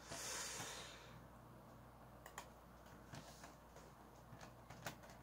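Faint, scattered clicks of a computer mouse, about half a dozen spread over a few seconds. A soft hiss fills the first second.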